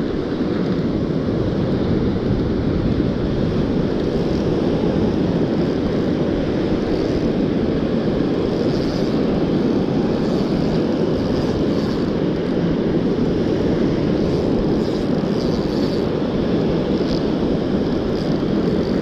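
Steady wind noise rumbling on the microphone, with the roar of ocean surf behind it.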